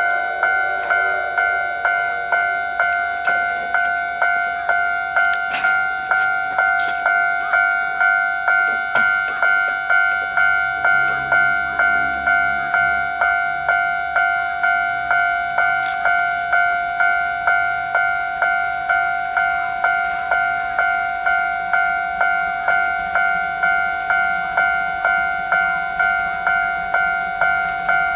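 Railway level-crossing alarm ringing: an electronic bell striking a steady two-tone ding over and over, a little under two strikes a second, as a train approaches.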